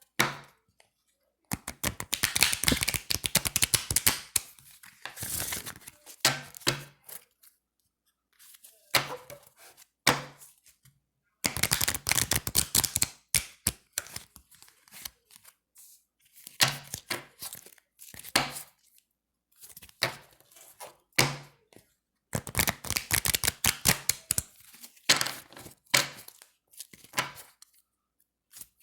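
A deck of thin, slick playing cards being shuffled, in repeated bursts of rapid fluttering clicks, each one to three seconds long, with short pauses between them.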